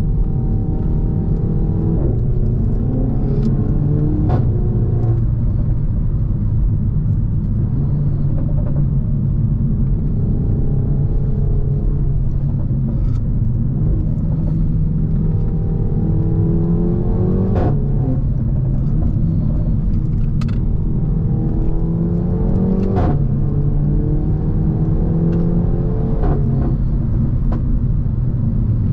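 Renault Megane 4 RS's 1.8-litre turbocharged four-cylinder engine, its exhaust catless, pulling hard with the revs climbing through the gears several times. A short sharp pop sounds at each upshift, about six in all.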